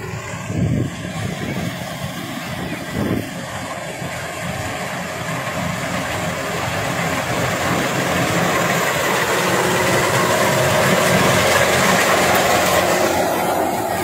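Kubota DC-93 combine harvester's diesel engine and threshing machinery running as it cuts through ripe rice. The sound grows steadily louder from about halfway in as the machine draws close.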